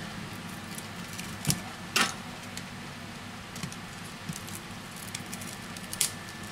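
Thin plastic pick clicking and scraping along a smartphone's edge as the heat-softened display module is pried off its frame, with a few sharp clicks, the loudest about two seconds in and again near the end.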